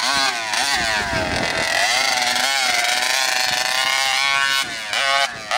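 RCMAX 80cc two-stroke gas engine of a 1/5-scale RC monster truck revving hard, its pitch rising and falling as the throttle is worked. Near the end it breaks into short bursts of throttle.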